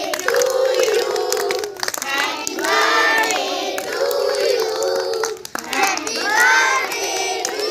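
A group of young children singing together, with hand claps running through the song.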